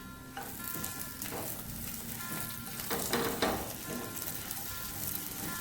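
Bread pieces frying in butter in a hot kadai, sizzling steadily, with a few short scrapes as they are stirred and tossed.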